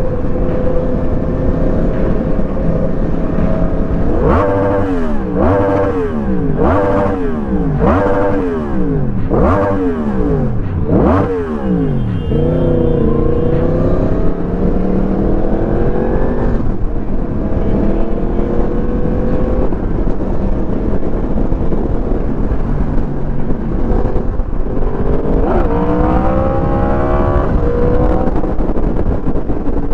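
Motorcycle engine revved in about five quick throttle blips, each rising and falling in pitch. It then accelerates twice with long rising pulls, all over a steady low rumble.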